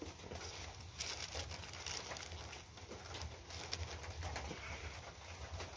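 Pizza being pulled apart by hand on a paper-lined tray: soft rustling of the paper and food handling, loudest about one and two seconds in, over a steady low hum.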